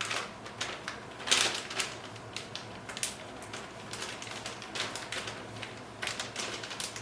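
Resealable plastic bag crinkling and rustling in irregular crackles as pork cutlets are put into the seasoned flour inside it and the bag is handled.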